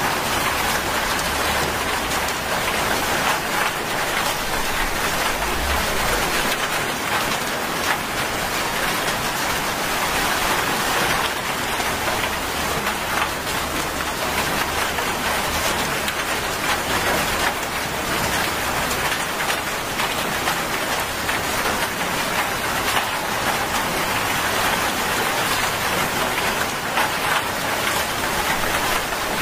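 Heavy rain falling steadily on a wet road and puddles, an even, unbroken hiss.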